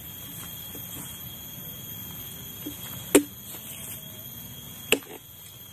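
Two sharp machete chops into a green coconut's husk, about three seconds in and again nearly two seconds later. A steady high-pitched whine runs underneath.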